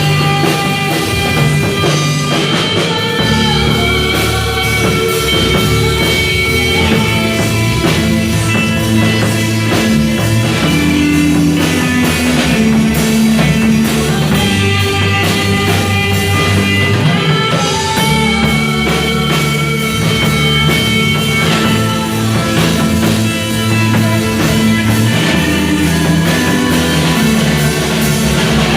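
Worship band playing a loud, rock-style instrumental passage with guitar and drum kit.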